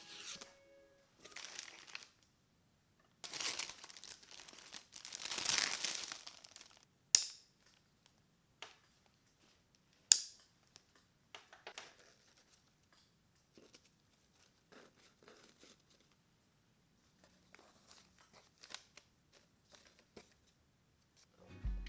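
Packaging being handled: several bursts of crinkling and tearing in the first six seconds, two sharp clicks about three seconds apart, then scattered small handling noises.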